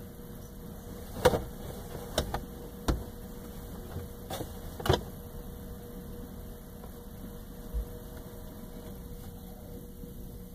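A few sharp knocks and taps, about six in the first five seconds and one duller thump later, over a steady low hum.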